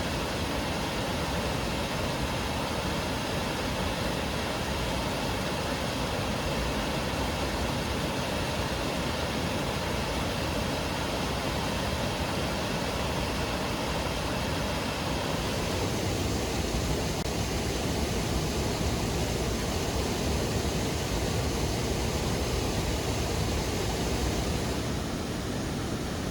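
Jiktang Waterfall's water pouring over a wide basalt ledge on the Hantan River, a steady rushing. About halfway through the rush turns deeper, with less hiss.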